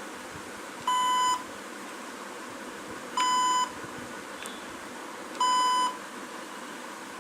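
Lenovo laptop beeping as the charger is plugged in: three short, even beeps about two seconds apart, each a steady pitched tone.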